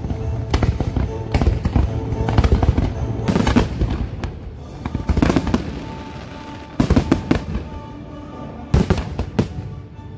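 Fireworks shells bursting in quick clusters of bangs, several volleys overlapping, with music playing steadily underneath.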